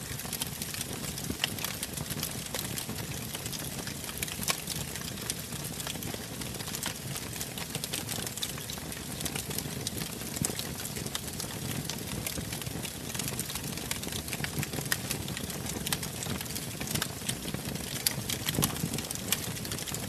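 Wood fire burning in a fireplace: a steady low rush of flames with frequent sharp crackles and pops from the burning logs.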